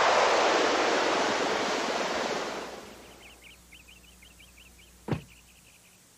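A sudden loud hissing rush as a cloud of smoke bursts up from a car's engine bay, fading away over about three seconds. Faint chirping follows, with one sharp click near the end.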